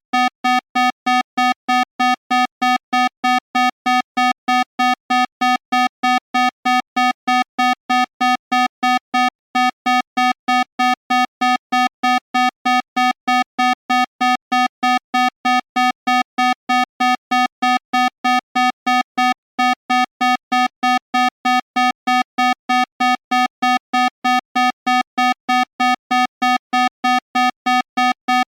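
Hospital alarm: an electronic beep at one steady pitch, repeating rapidly at about three beeps a second, with a brief break about every ten seconds.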